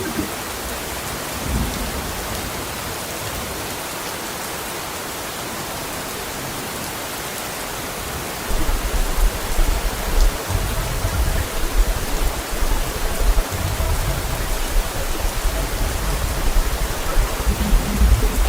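Steady rain falling, an even hiss. About halfway through a low, uneven rumble joins it and the sound grows louder.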